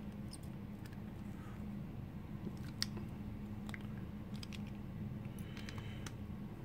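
Scattered light clicks and scrapes of a snap ring being worked off the back of a lock cylinder with a makeshift tool instead of snap-ring pliers, over a faint steady hum.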